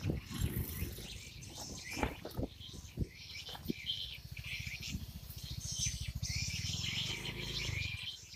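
Birds chirping, over a low, fast, even pulsing like a small engine running that grows stronger from about three seconds in.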